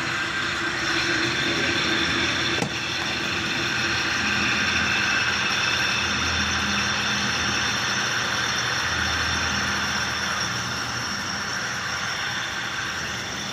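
Twin-tub washing machine's spin-dryer motor running with a loud, steady whine and hum. Water is suspected to have leaked in and rusted it, and oiling later quiets it. A single sharp click comes about two and a half seconds in.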